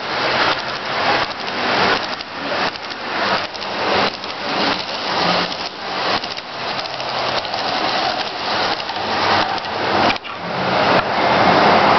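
HO scale model freight train rolling past close by: the cars' wheels on the track make a steady rushing rattle that swells and fades about once a second.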